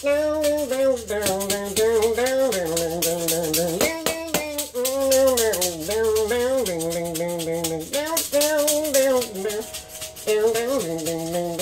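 Maraca shaken in a quick, steady rhythm over a blues melody of held, bending notes.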